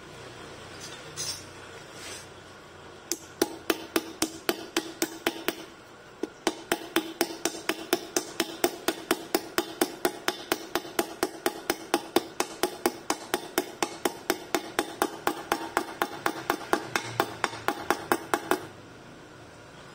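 Rapid, even hammer taps on a metal pipe used as a drift, driving a ball bearing into its seat in an aluminium scooter crankcase. The taps start about three seconds in at about four a second, pause briefly, then run on until about a second before the end.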